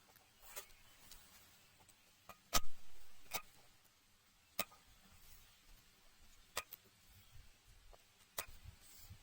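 Scattered light clicks and knocks, about one every second or two. The loudest is a thud a little over two seconds in, followed by a short rustle.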